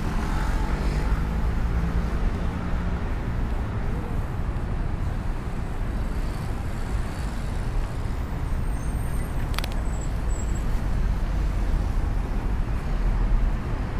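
City road traffic heard from the sidewalk: a steady rumble of passing cars and buses, with an engine drone in the first few seconds. A single sharp click comes about two-thirds of the way through.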